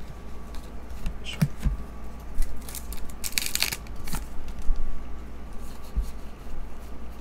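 2023 Topps Star Wars trading cards being handled and sorted through by hand, slipping and flicking against one another in scattered light clicks, with a short, louder rustle of cards sliding over each other about three and a half seconds in.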